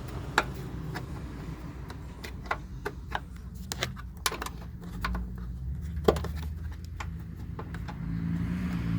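Scattered sharp metallic clicks and clinks of a hand wrench or ratchet and socket working a 10 mm bolt on the washer fluid tank, over a steady low hum.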